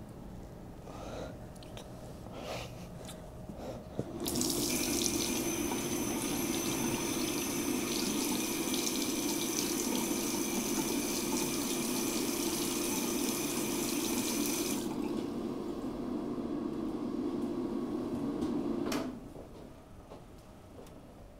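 Water running from a motel bathroom tap into a sink, starting suddenly about four seconds in and running steadily before being shut off near the end.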